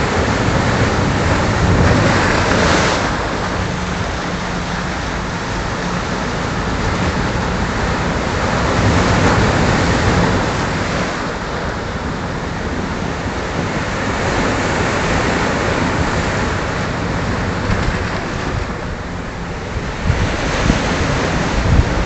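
Rough sea surf breaking and washing over shoreline boulders: a continuous rushing of water that swells louder about two seconds in and again near the middle, with wind rumbling on the microphone.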